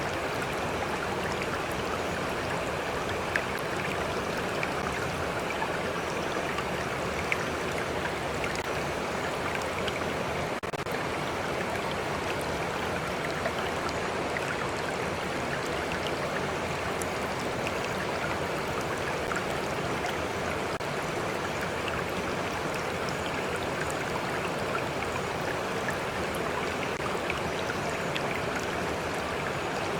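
A stream of water flowing steadily, with small splashes and lapping ticking through it.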